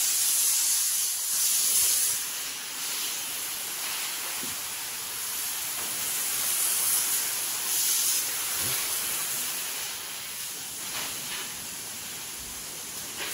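Garden hose spray nozzle spraying water onto a concrete floor: a steady hiss that swells and fades as the spray is swept about, wetting the floor down to keep dust from flying up.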